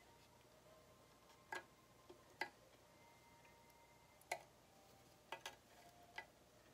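Near silence broken by about seven short, faint clicks and taps at irregular intervals, from a disposable lighter and paracord being handled and set down on a workbench.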